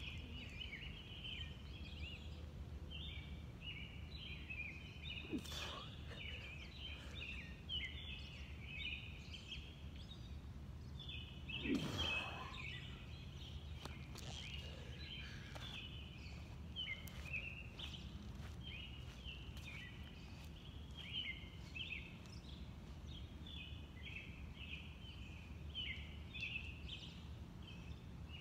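Outdoor ambience: a steady chorus of short, high chirps repeating without pause, over a low steady hum. About twelve seconds in there is one brief, louder whoosh.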